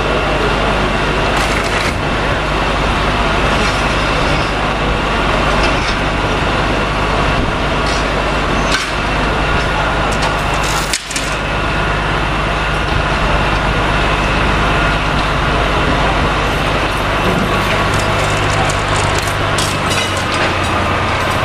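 Steady low machinery hum and rushing noise from the SS Badger car ferry, a coal-fired steamship, held at its dock, with water churning beside the hull. A couple of short knocks come midway.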